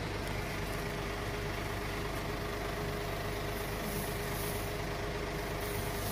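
Steady mechanical drone with a constant low hum, unchanging throughout.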